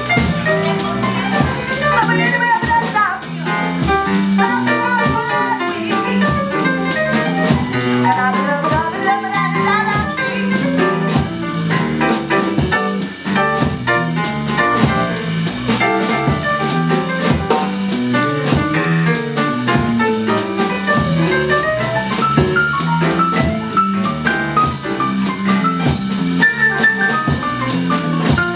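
Live jazz band playing an instrumental passage, drum kit and cymbals under a melody line.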